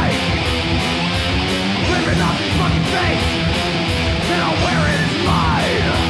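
Thrash metal song in an instrumental stretch: distorted electric guitars, with lead guitar notes sliding up and down, over a fast steady beat.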